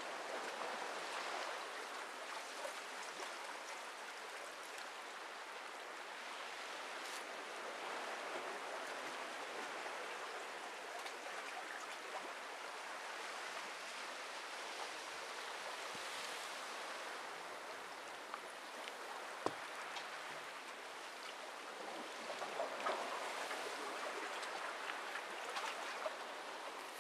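Small sea waves lapping gently on a sandy shore, a steady soft wash of water, with a few faint clicks in the last third.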